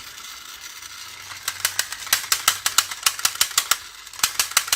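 Rapid, even plastic clicking from a toy's mechanism being worked, about seven clicks a second. It starts about a second and a half in and breaks off briefly near the end before resuming.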